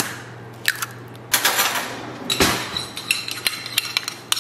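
An egg cracked on the rim of a stainless steel mixing bowl: a series of sharp taps and clinks, with a louder knock about halfway through as the shell breaks and the pieces are set down in a small bowl.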